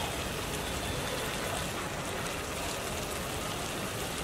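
Thick chicken curry sizzling steadily in a kadai on the stove as it cooks down.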